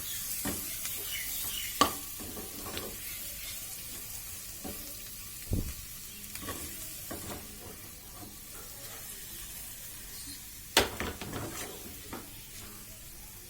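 Chicken pieces sizzling in a frying pan with a little butter just added, stirred by a utensil that scrapes and clicks against the pan. A sharper knock comes about two seconds in and a louder clatter near the end.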